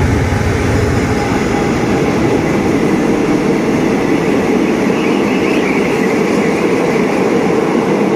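State Railway of Thailand CRRC 5200-class diesel-electric locomotive running past at the start, followed by its passenger coaches rolling by with a steady rumble of wheels on the rails.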